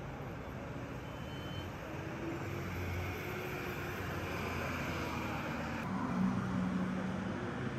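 Steady background din, an even rumble and hiss, with a short low hum about six seconds in.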